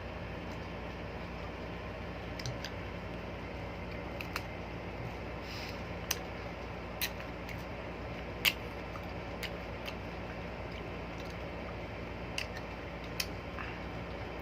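A steady low hum, with about nine short, sharp clicks and taps scattered irregularly through it; the loudest comes a little past the middle.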